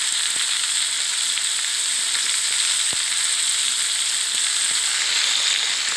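Battered squid pieces deep-frying in hot oil in a wok: a steady sizzle with a few faint pops.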